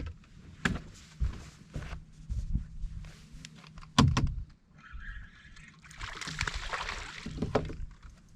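Knocks and bumps in a fishing boat as a hooked largemouth bass is landed, over a low steady hum, with a loud knock about four seconds in and a rushing noise near the end.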